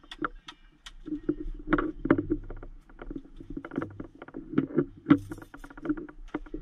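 Rapid, irregular clicking, knocking and rubbing from hands and a handheld camera moving about a vehicle cab and its switch panel, over a faint steady low hum.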